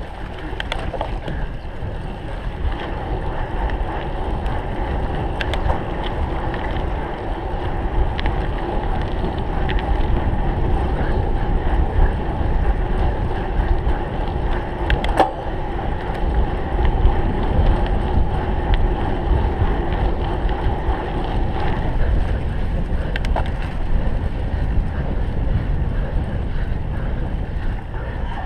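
Wind rushing over the microphone of a cyclocross bike being raced, as a loud steady rumble. Under it runs a steady hum from the moving bike, with a few sharp clicks and knocks along the way.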